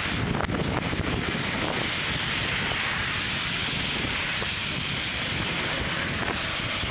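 Steady rushing wind noise on a helmet-mounted camera's microphone while riding a bicycle along a road.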